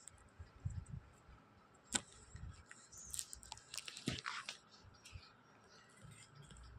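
Scissors cutting through cloth: faint snipping and crunching, with a sharper click about two seconds in and several more between three and four and a half seconds.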